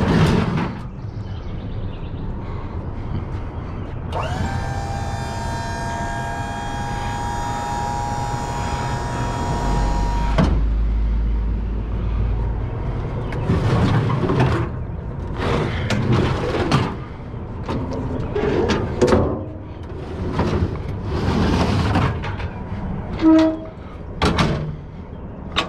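Curbside scrap metal being handled and loaded: a steady metallic screech for about six seconds that cuts off abruptly, then a run of clanks and bangs of metal pieces knocking together.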